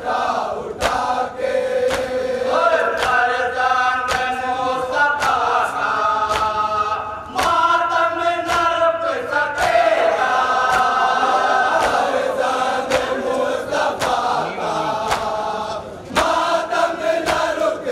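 A noha chanted by a group of men into a microphone: a lead voice with others singing along in long, drawn-out lines. Sharp slaps of matam (hands striking the chest) cut in at irregular points.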